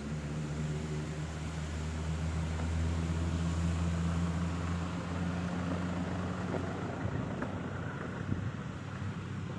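A motor vehicle going past, its engine hum and road noise building to a peak a few seconds in and fading away after about six seconds.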